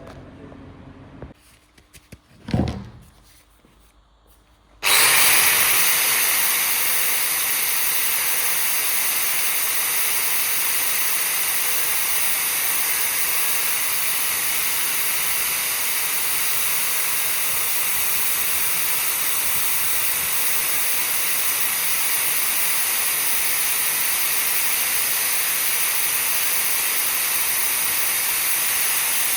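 A couple of light knocks, then a power tool switches on about five seconds in and runs at a steady speed, a constant hiss with a faint whine.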